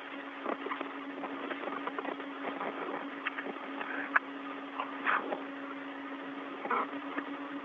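Open space-to-ground radio channel with no one talking: a steady hum and hiss with a few short crackles.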